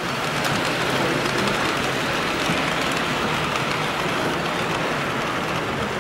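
HO scale model trains running past on the layout: a steady hissing rumble of small metal wheels on the track, with faint ticks.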